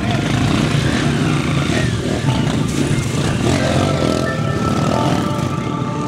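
Off-road dirt bike engines running close by, a loud, steady noise that eases off near the end.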